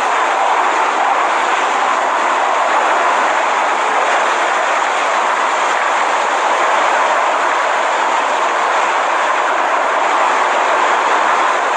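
Hurricane-force wind and heavy rain making a steady, unbroken rushing noise.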